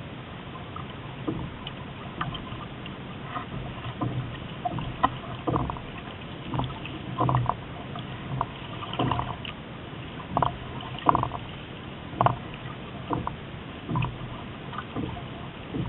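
Water slapping against the hull of a small sailboat under way: irregular short slaps, roughly one a second, over a steady rush of water and wind.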